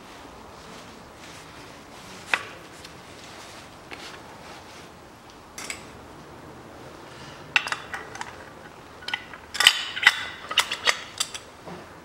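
Steel parts of a Chevrolet Lanos five-speed manual gearbox clinking and knocking against each other as the gear shafts and rear cover are handled during reassembly. There is a single clink about two seconds in, another midway, then a run of sharper metallic clinks in the last few seconds.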